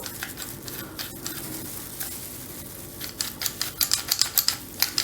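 Small metallic clicks and taps from the parts of a disassembled door lock being handled, sparse at first and coming quickly from about three seconds in.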